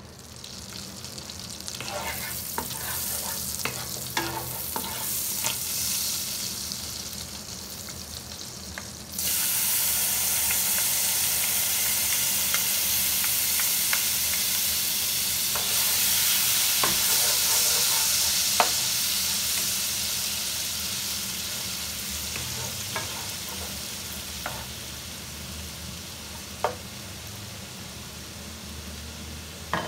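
Hot oil sizzling in a nonstick pan. About nine seconds in the sizzle suddenly turns loud as minced garlic goes into the oil, then it fries with a steady sizzle, slowly dying down toward the end. Sharp taps and scrapes of a wooden spatula against the pan are heard throughout.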